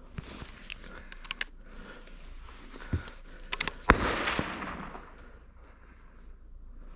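A single rifle shot about four seconds in, its report echoing and dying away over about a second, after a few sharp clicks and knocks.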